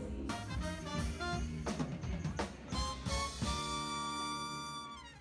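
Music with drum kit hits and pitched instruments, ending on a held chord that fades out near the end.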